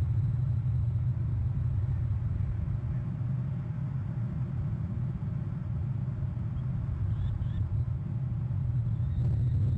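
Steady low rumble of outdoor background noise picked up by the nest camera's microphone, with two faint high chirps about seven seconds in.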